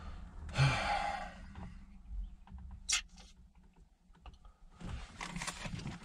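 Small handling noises from test leads and wiring at a connector: a brief rustle, one sharp click about three seconds in, a scatter of faint ticks, and more rustling near the end.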